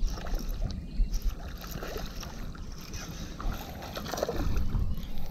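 Casting and retrieving a lure with a baitcasting rod and reel: scattered handling clicks over a steady low rumble of wind and water at the microphone.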